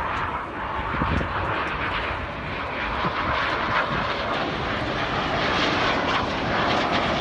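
Jet aircraft flying past, its engine noise a steady rush that grows slightly louder.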